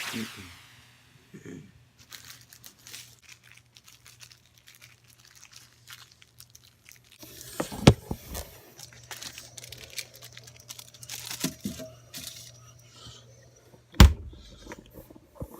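Paper being handled and crumpled, crinkling and crackling, with two sharp knocks, one about eight seconds in and one near the end.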